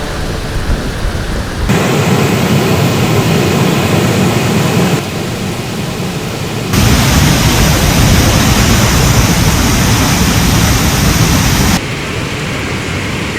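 Heavy rain and floodwater, a steady rushing noise with no distinct claps, in clips of field audio spliced together that cut abruptly from one to the next every few seconds.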